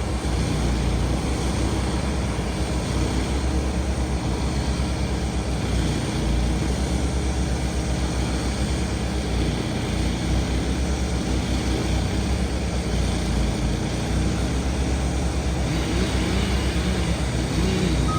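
Heavy machinery engine running steadily under load with a deep rumble.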